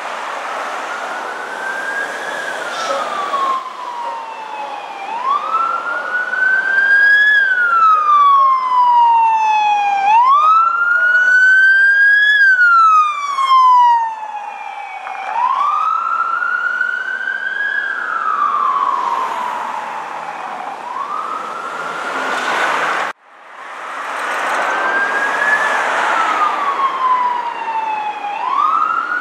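Police car siren in wail mode on an emergency Code 3 response: a loud tone that climbs quickly and sinks slowly, about once every five seconds, over traffic noise. It breaks off suddenly about 23 seconds in and comes back within a second.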